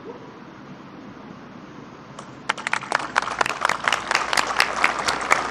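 Hands clapping in applause, starting about two and a half seconds in and quickly building into many quick claps, after a stretch of low background noise.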